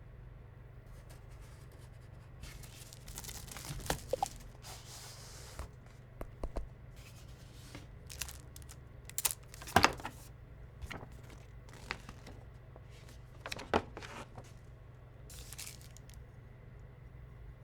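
Keyboard packaging being opened by hand: wrapping tearing and crinkling, with a few sharp knocks and clacks as the box and its contents are handled.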